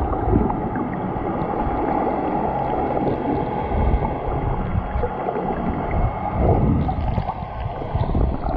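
Muffled, steady rushing and gurgling of water heard underwater as the camera moves through the sea, with no clear separate events.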